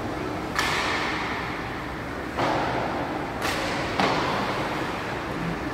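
Ice hockey play: four sharp clacks of stick, puck and boards, each with a short echo trailing off.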